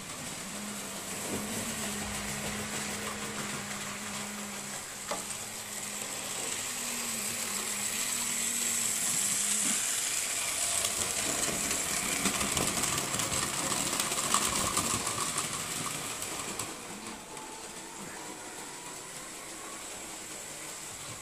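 Märklin H0 model trains running on the layout's metal track: a continuous hiss of wheels and motors, with a low steady hum through the first half. It grows louder toward the middle and eases off suddenly about three-quarters of the way in.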